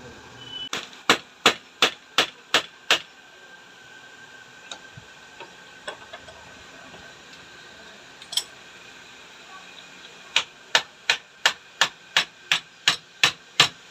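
Hammer blows on a motorcycle mono-shock absorber during reassembly: a run of about six evenly spaced strikes, a few single taps, then from about ten seconds in a faster steady series of about three blows a second.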